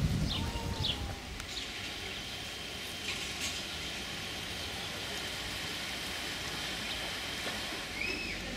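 Outdoor ambience: a steady low rumble, with a few quick bird chirps in the first second and a short arching bird call near the end.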